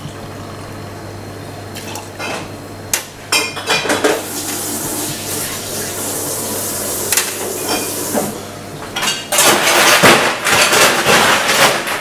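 Cocktail being built in steel bar tools: aged rum poured through a jigger into a shaker tin, with clinks of the metal jigger and tins. Near the end comes a loud, dense clatter of ice being scooped into the shaker tin.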